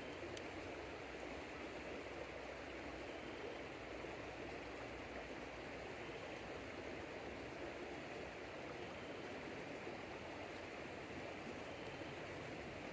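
Mountain stream flowing: a steady, even sound of running water.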